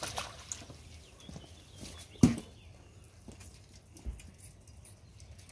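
Freshly stocked trout thrashing and splashing at the water's surface in a floating net pen, the splashing dying away after the first moments, with one sharp knock about two seconds in and a low thump later.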